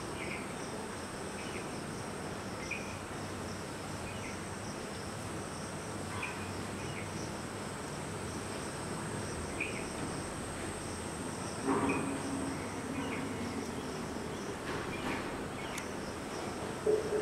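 Insects buzzing steadily at a high pitch, with short higher chirps every second or two. A louder sound of about a second comes around twelve seconds in, and another brief one right at the end.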